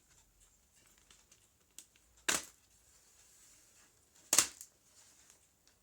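Two sharp plastic clicks about two seconds apart: the snap-fit clips of an HP Pavilion G6 laptop's top case releasing as it is pried open.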